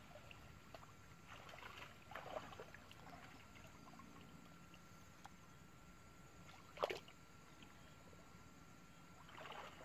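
Faint water sloshing and dribbling as people wade in a shallow pond and gather in a wet cast net, with one short louder sound about seven seconds in.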